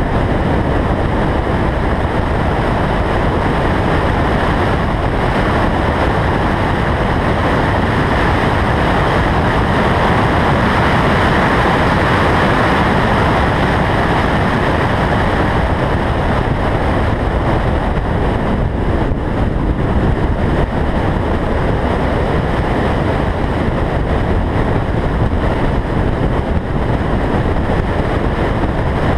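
Car driven at track speed, heard through a roof-mounted camera's microphone: a loud, steady rush of wind and road noise that swells a little partway through.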